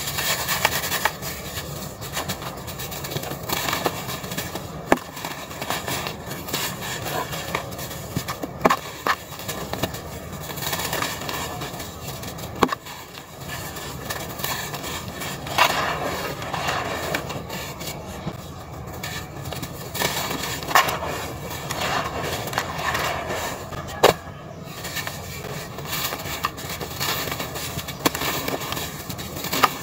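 Hands crushing and crumbling compacted lumps of dry red dirt into a plastic tub: a continuous gritty crunching and trickling of falling crumbs, with sharp cracks about half a dozen times as chunks snap apart.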